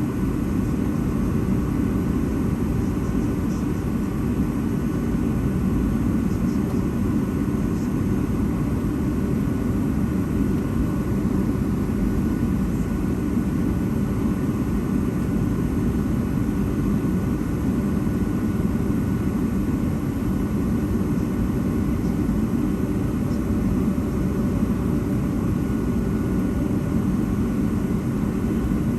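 Steady engine and airflow noise of a Boeing 757-232 with Pratt & Whitney PW2000 engines, heard inside the passenger cabin, an even low noise that does not change.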